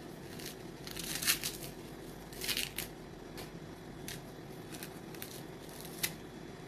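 Dry coconut husk fibres tearing and crackling as fingers pull them from the end of a whole brown coconut, in irregular short scratchy bursts, the loudest about a second in.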